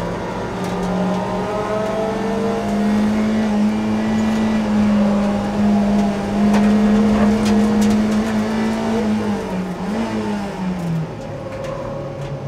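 Mazda Roadster (MX-5) race car's four-cylinder engine on its stock exhaust, pulling hard under full throttle, its pitch climbing slowly for about nine seconds, then dropping about ten seconds in as the driver backs off.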